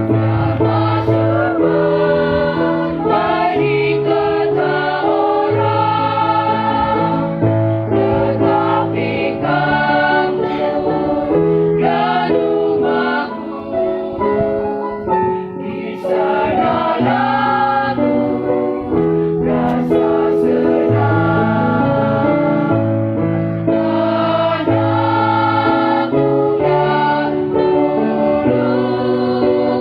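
A choir singing with instrumental accompaniment, over a bass line that changes note every second or two.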